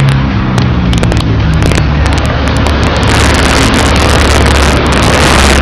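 Street traffic running past: a steady low engine hum, with a vehicle's noise swelling loudly as it passes close in the second half.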